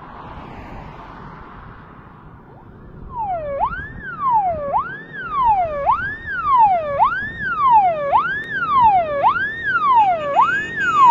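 Electronic vehicle siren wailing, its pitch sweeping up and down a little more than once a second. It starts about three seconds in over faint traffic noise and grows louder as the convoy approaches.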